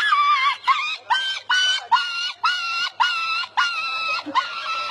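A man imitating a dog, giving about ten short, very high-pitched yelping cries into a microphone, about two a second, each swooping up at the start and then held.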